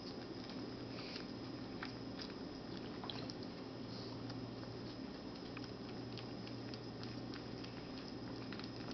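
Persian kittens eating: faint, irregular small clicks and smacks of chewing and biting, over a steady low hum.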